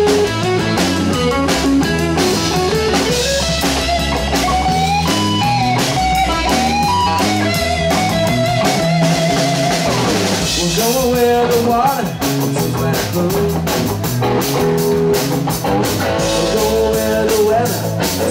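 Live band playing an instrumental break: an electric guitar plays a lead melody over a drum kit beat. The cymbals become busier about eleven seconds in.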